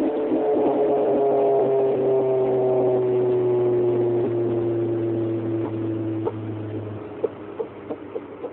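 Honda Civic making a whining tone that slides slowly down in pitch over a low hum. The hum cuts off about seven seconds in, and a few irregular sharp ticks follow as the level drops.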